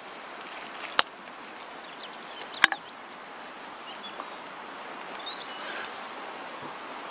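Small axe splitting kindling sticks against a rock: two sharp chops, about a second in and a louder one just before the middle.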